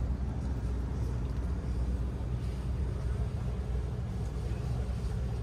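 Steady low mechanical hum and rumble that does not change, with several constant low tones.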